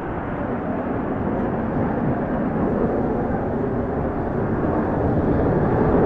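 Jet roar of a Mitsubishi F-2 fighter's single General Electric F110 turbofan as the aircraft climbs away after takeoff, a dense steady roar that grows slowly louder.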